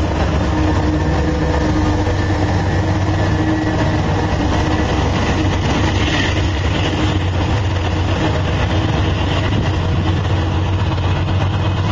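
Diesel locomotives of a Union Pacific freight train running as they pass close by, a steady heavy rumble of engines and rolling train.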